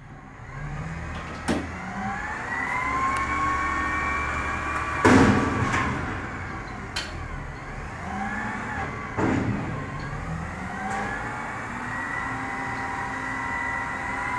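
Garbage truck emptying a large dumpster. The truck's engine and hydraulics whine, rising and falling in pitch, as the bin is lifted and lowered twice. Metal bangs and clanks come as the bin is shaken out, the loudest about five seconds in.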